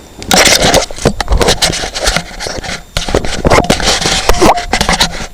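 Loud, irregular scraping and rustling with many sharp knocks and clicks.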